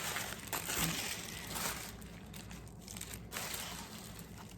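Paper packaging crinkling and rustling as it is handled and unwrapped, in uneven surges that are strongest in the first couple of seconds and ease off toward the end.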